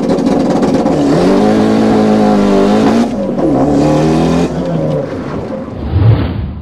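Race car engine revving, its pitch climbing and falling several times as it accelerates and shifts, fading out near the end.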